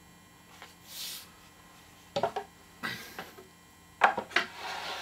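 A saw guide track and a sheet of plywood being handled on the bench: a brief scrape about a second in, then three sharp knocks and clatters as they are set down and moved, and a scraping slide near the end.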